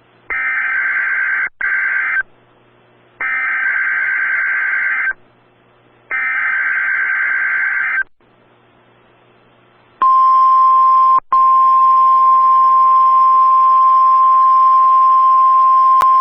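Emergency Alert System SAME header: three bursts of buzzy digital data tones, each about two seconds long and about a second apart. About ten seconds in, the NOAA Weather Radio 1050 Hz warning alarm starts as one steady high tone, with a brief dropout just after it begins. The sequence signals an incoming tornado watch alert.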